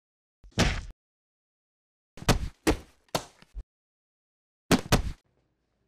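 Punch and hit sound effects for a staged fight: about five sharp whacks, each a low thump with a crack on top. One comes under a second in, three follow in quick succession from about two seconds in, and a last one lands near the end, with silence between them.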